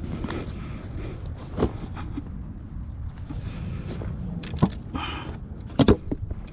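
Rummaging in a fabric tackle bag: rustling and handling noise with a few sharp clicks and knocks, the loudest two close together near the end, over a steady low rumble.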